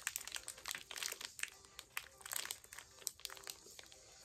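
Plastic wrapper of a Mexican candy crinkling in irregular crackles as fingers pick and peel it open.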